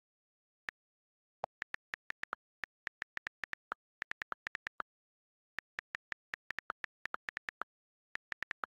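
iPhone on-screen keyboard key clicks as a message is typed: short ticks in quick, irregular runs of several a second, with short pauses between runs.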